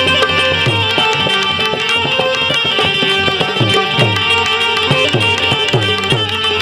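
Instrumental passage of santvani devotional music: tabla playing a busy rhythm, its bass drum strokes sliding down in pitch, over steady held melodic notes.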